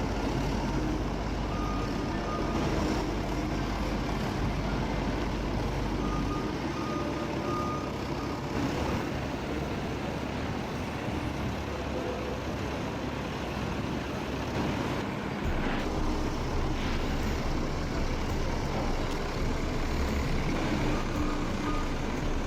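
Heavy log loader's diesel engine running steadily under working load. Short high beeps recur every few seconds, and a few knocks come about two-thirds of the way through.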